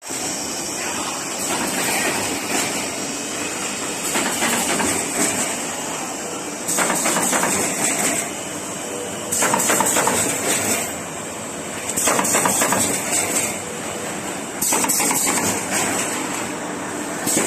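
Automatic partition assembly machine running, slotting corrugated cardboard dividers together into grids: a steady mechanical clatter with louder spells of rapid clacking about every two and a half seconds.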